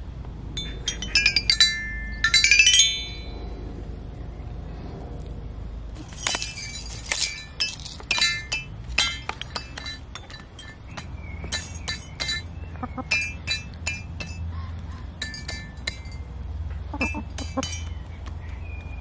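Children's toy xylophone with coloured metal bars: first a quick run of notes down and back up the bars with a mallet, then, from about six seconds in, scattered irregular single notes and clinks as hens peck at the bars. A low steady rumble runs underneath.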